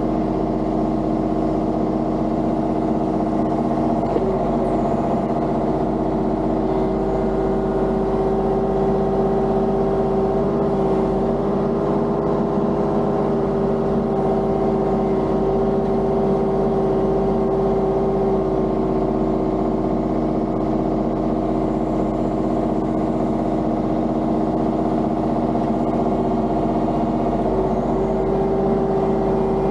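Diesel engine of compact excavation equipment running steadily under work, its pitch shifting slightly about four seconds in and again near the end.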